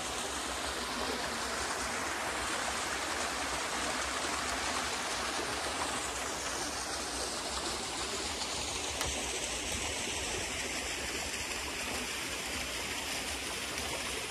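Water of a mountain stream rushing steadily over small waterfalls into rock pools.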